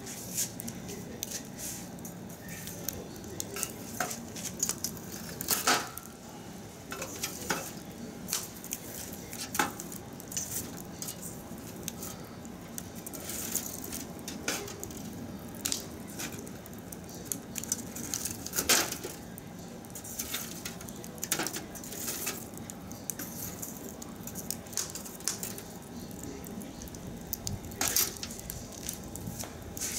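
Wood fire crackling in a metal drum barbecue, with irregular sharp pops and snaps. A metal poker stirs and knocks the burning wood, adding clinks and scrapes.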